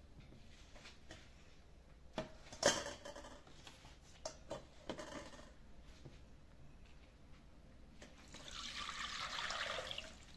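A few light knocks and clinks, the loudest about three seconds in, then water flowing for about two seconds near the end.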